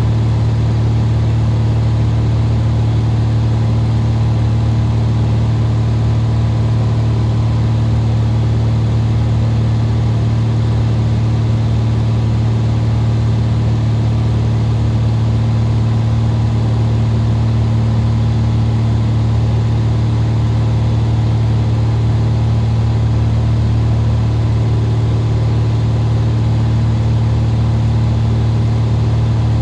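Single piston engine and propeller of a Cessna RG heard from inside the cabin, a loud low drone that holds steady at one power setting without change.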